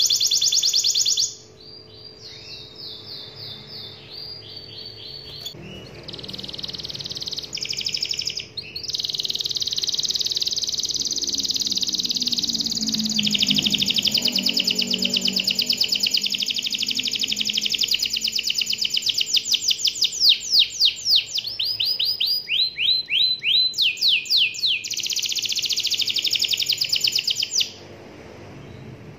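Domestic canary singing a long, fast rolling song of rapid trills and repeated sweeping notes. A loud opening phrase gives way to quieter phrases for several seconds, then a long loud trill runs on and stops near the end.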